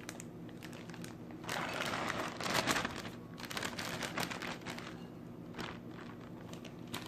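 Plastic bag of chopped salad crinkling and rustling as it is handled, with a louder rustle lasting about a second and a half about two seconds in, and lighter crackles after it.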